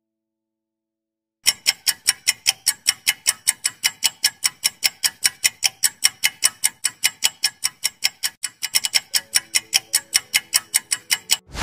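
Quiz countdown-timer sound effect: a clock ticking evenly, about four ticks a second, starting after a second or so of silence. Faint short low notes join under the ticks near the end.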